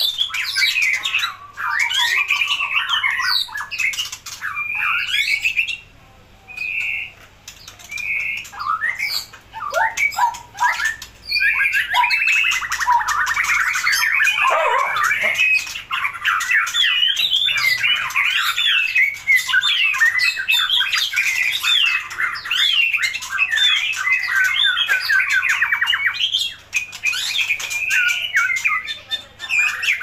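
White-rumped shama singing: a long, varied run of whistled and harsh chattering phrases, with a fast rattle about twelve seconds in and a few short pauses.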